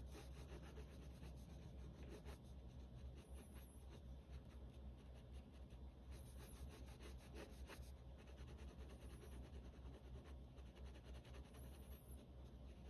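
Pen scratching across sketchbook paper in quick, repeated hatching strokes, faint, over a steady low hum.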